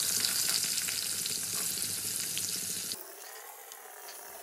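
Fish steaks sizzling as they are laid one by one into hot mustard oil in a kadai. About three seconds in, the sizzle drops abruptly to a quieter, thinner hiss.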